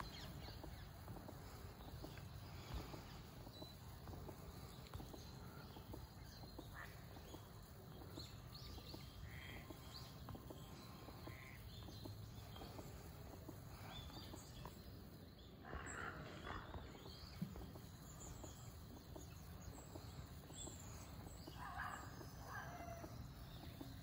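Faint outdoor ambience: a steady low rumble with scattered short bird calls, a few louder ones about two-thirds through and again near the end.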